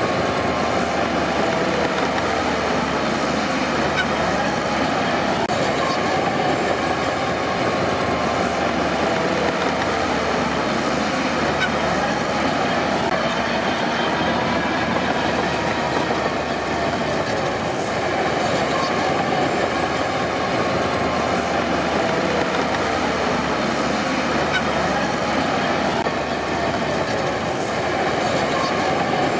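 Crawler bulldozer working: its diesel engine runs steadily under a wavering load while the steel tracks clank and squeal.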